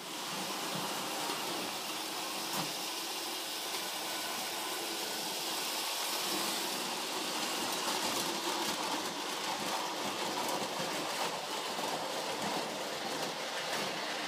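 A prewar Lionel O gauge streamlined toy train running on three-rail tinplate track: a steady whirring rumble of its electric motor and wheels, with faint light clicks in the second half.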